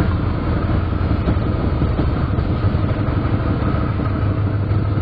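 Diesel locomotive engine running with a steady, deep drone.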